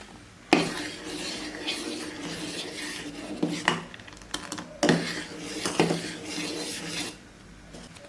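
A spoon stirring and scraping around a cooking pot, with several sharp clinks against the pot, as custard-powder milk is stirred into the simmering milk and rice.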